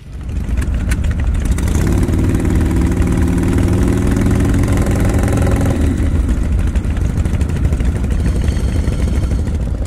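Vintage Harley-Davidson V-twin motorcycles (Shovelheads and Panheads) idling together, a loud, steady low rumble. A steadier engine note sits over it from about two to six seconds in.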